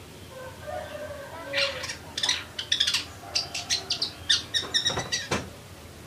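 Long-tailed shrike (pentet) calling in two bursts of rapid, sharp, sparrow-like chirps, with a few softer lower notes before the first burst.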